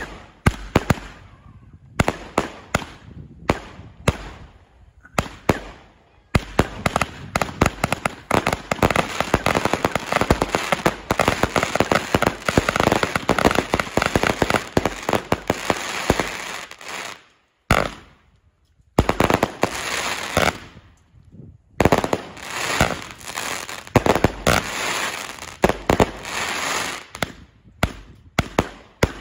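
Lesli Stadium Wave 188-shot compound firework battery firing. A few separate shots open it, then about six seconds in it becomes a dense, rapid string of shots and bursts. Two brief pauses come about two-thirds of the way through, and it thins to separate shots near the end.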